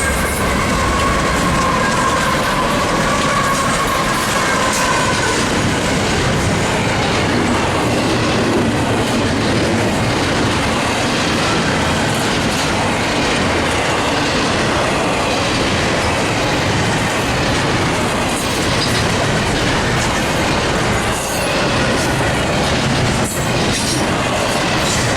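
Freight cars of an intermodal train rolling past on steel wheels: a loud, steady rush of wheels on rail. A faint high tone dies away over the first few seconds.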